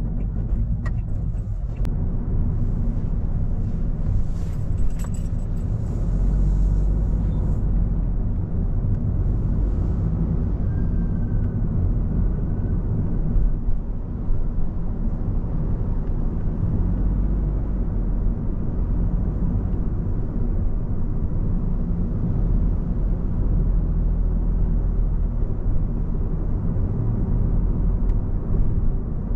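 Car being driven, giving a steady low rumble of engine and road noise, with a little hiss and light ticking a few seconds in.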